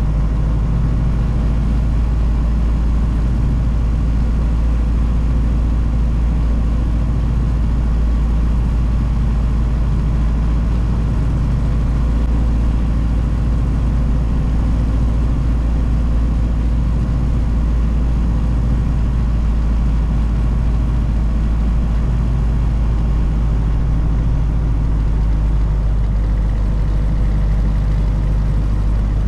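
1932 Ford Model B's four-cylinder engine running steadily as the car cruises, heard from inside the cabin along with the rumble of the road.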